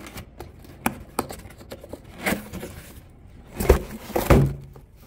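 Cardboard shoe-style skate box being opened by hand: a few sharp clicks and short scrapes of the lid's tab and flaps, then two heavier thumps near the end.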